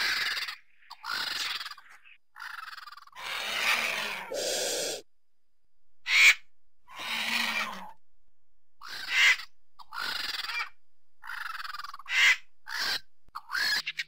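Griffon vultures at carrion giving a string of harsh, hoarse calls, about a dozen, each under a second long, with short silent gaps between them.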